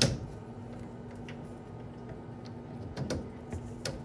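Clicks and knocks of handling copper pipe and push-fit plumbing fittings: one sharp knock at the start, then a few fainter clicks, over a steady low hum.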